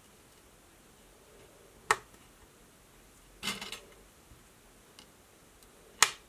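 Thin metal cutting dies clicking as they are set down and arranged on a storage sheet by hand: a sharp click about two seconds in, a short rattle around the middle, and another sharp click near the end.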